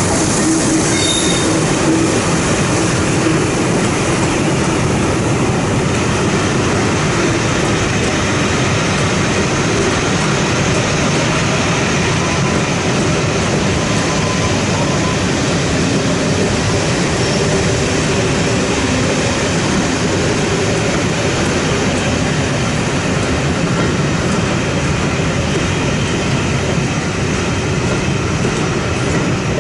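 Passenger coaches rolling past on a sharp curve: steady wheel-on-rail noise with wheels squealing.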